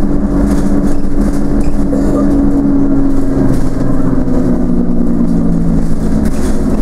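Dennis Enviro 200 single-deck bus heard from inside the saloon while moving: its diesel engine and drivetrain give a steady droning note over a low rumble and road noise. About halfway through the note falls in pitch over a couple of seconds, and it begins to climb again near the end.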